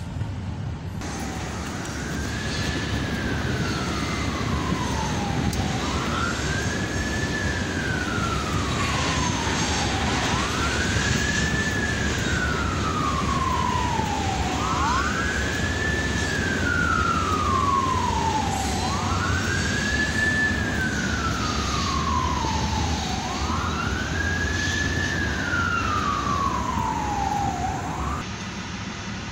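Emergency vehicle siren in wail mode: each cycle rises quickly in pitch, then falls slowly, repeating about every four seconds, six times, and it stops near the end. A steady low rumble of traffic lies under it.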